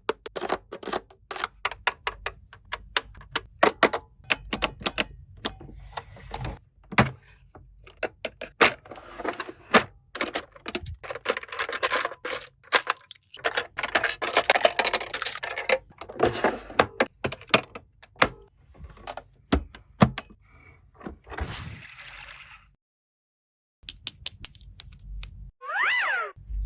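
Plastic toy pieces and packaging clicking, tapping and knocking during an unboxing, with rustling packaging through the middle stretch.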